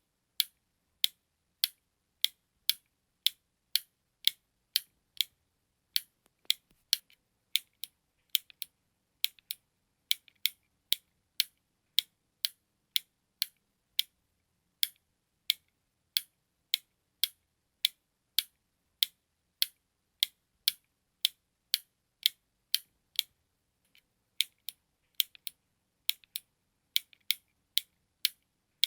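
Button clicking in a steady 'tic-toc' rhythm, about two sharp, high clicks a second, with a few fainter clicks in between now and then.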